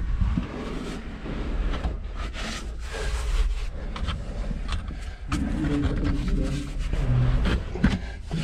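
A person crawling through a tight cave crawlway: clothing and gear scraping and rubbing over rock, with rumbling handling noise on the camera. Irregular scrapes come throughout, and a muffled grunt or voice joins about five seconds in.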